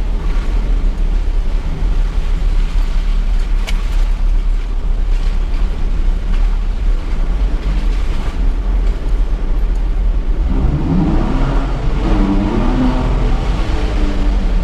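Mitsubishi Triton ute driving slowly off-road, heard from inside the cab: a steady low engine and road rumble with occasional knocks and rattles.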